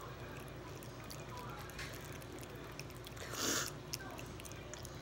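Small primates, an owl monkey and a ring-tailed lemur, chewing banana pieces: faint wet clicks and smacks. About three and a half seconds in comes one short breathy rush of noise.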